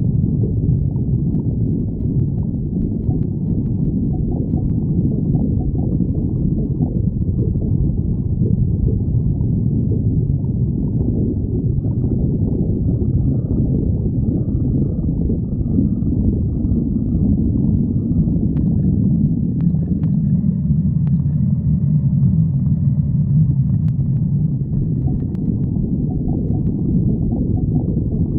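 A person's stomach growling: continuous low rumbling and gurgling.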